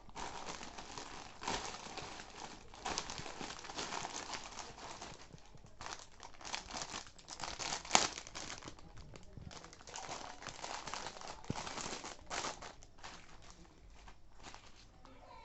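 Parcel packaging being torn open and handled, an irregular crinkling rustle with a sharp click about eight seconds in, dying down near the end.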